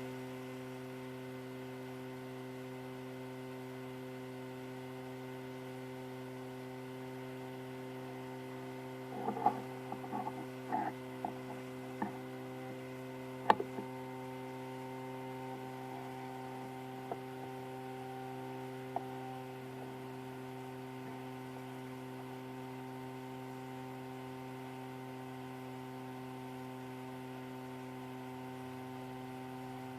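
Steady electrical hum made up of several level tones. A cluster of light clicks and knocks comes about nine to fourteen seconds in, the sharpest near the end of that cluster, followed by two faint ticks a few seconds later.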